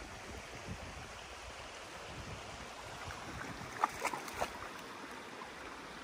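Creek water running faintly and steadily, with three or four quick splashes about four seconds in as a Boston terrier wades through the shallow pool.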